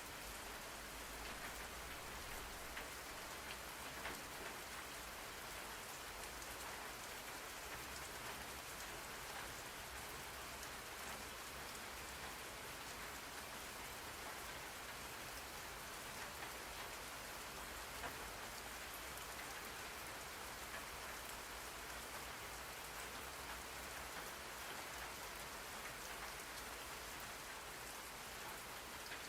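Steady rain falling on a surface, an even hiss with scattered drop patter.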